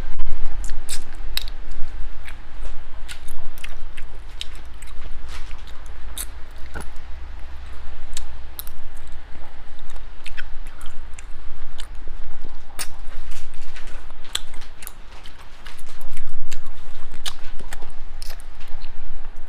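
Close-up mouth sounds of eating small sea snails: chewing and sucking the meat from the shells, with many irregular sharp clicks and smacks.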